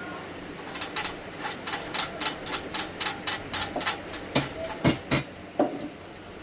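A steady run of sharp clicks, about four a second, then three louder knocks near the end, from hand work on the metal frame of an industrial sewing machine stand.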